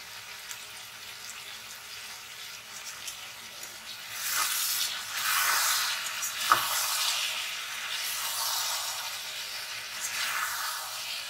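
Spiced potatoes, onions and tomatoes sizzling in oil in a karahi as they are stirred: the bhuna stage, frying the masala into the vegetables. A faint steady sizzle grows louder in swells from about four seconds in, with one sharp knock a little after.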